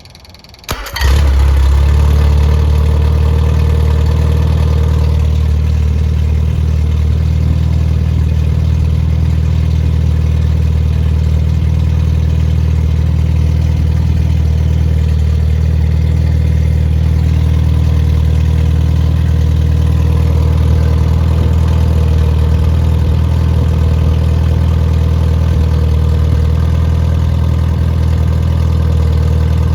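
Freshly rebuilt Triumph Spitfire 1500 four-cylinder engine starting about a second in: a very short crank, then it fires and settles straight into a steady idle.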